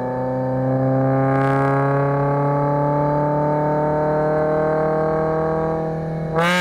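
Exhaust of a 2011 Kia Forte EX's four-cylinder engine droning as the revs climb slowly and steadily, with a sudden jump in pitch near the end.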